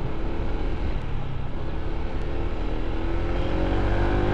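Honda ADV 160 scooter's single-cylinder engine pulling on a gradual uphill, its pitch rising slowly as it gains revs, over a steady low rumble.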